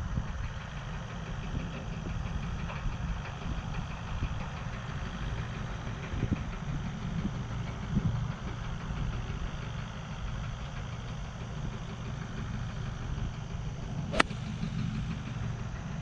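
A 3-iron striking a golf ball once, a single sharp click about 14 seconds in, on a shot the golfer says he didn't catch perfectly. A steady low rumble runs underneath.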